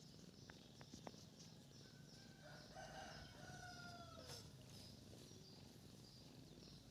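A rooster crowing once, faint: a single call of about two seconds that holds its pitch and then drops at the end.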